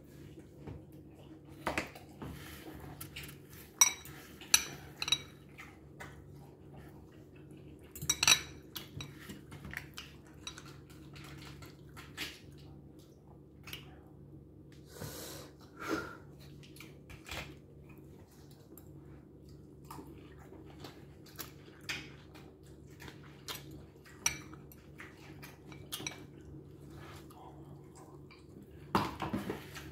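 Metal fork clinking and scraping against a glass bowl as food is scooped up, with irregular sharp clinks, a few of them loud.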